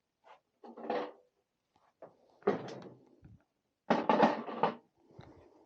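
Saddle and seatpost being handled and slid into the e-bike's seat tube: three bursts of knocking and clattering, the loudest and longest about four seconds in.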